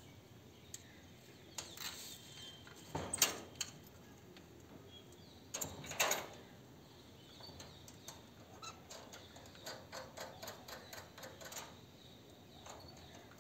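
A series of light clicks and knocks: two louder knocks about three and six seconds in, then a run of quick ticks, about four a second.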